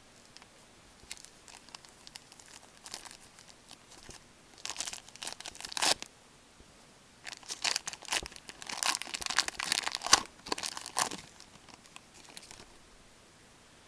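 Crinkling and tearing of a hockey card pack's wrapper being torn open by hand, in irregular bursts with the busiest stretch in the second half.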